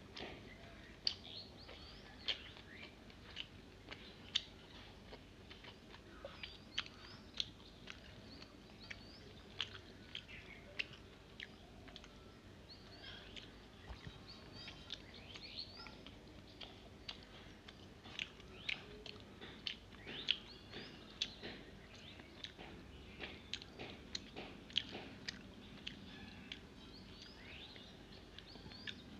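A person chewing mouthfuls of rice and fried fish, with many irregular wet mouth clicks and smacks.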